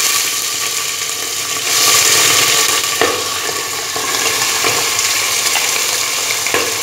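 Mutton liver pieces sizzling loudly as they hit hot mustard oil in a pot, a dense steady hiss that swells for about a second roughly two seconds in. A couple of short knocks come from the dish against the pot.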